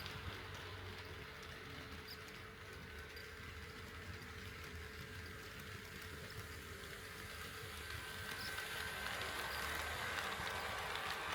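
HO scale model train running along the track: a steady rolling and running noise that grows louder over the last few seconds.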